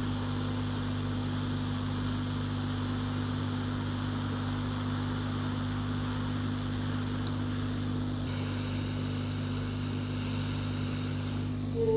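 Steady electrical hum, with a faint hiss that grows a little about eight seconds in and two small clicks in the middle.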